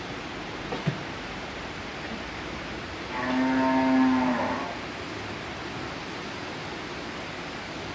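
A cow mooing once, one long call of about a second and a half at a steady pitch, over steady background noise.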